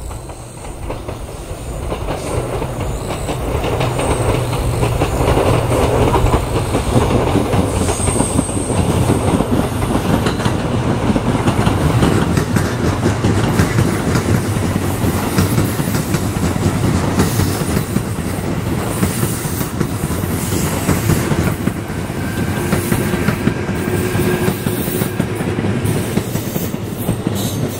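Kintetsu 80000 series Hinotori eight-car electric limited express passing on the Nakagawa short line. The sound builds over the first few seconds and then stays loud as the cars run by, wheels clacking over the rail joints. A faint high steady tone joins in near the end.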